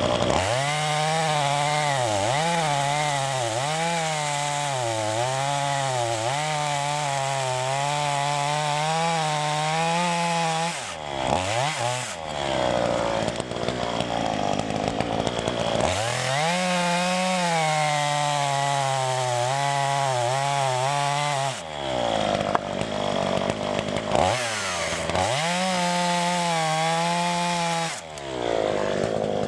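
Two-stroke chainsaw running at high revs as it rips lengthwise along the grain of oak. Its pitch wavers and sags as the chain bogs in the cut. It falls off and revs back up about 11 seconds in, again around 22 and 24 seconds, and near the end.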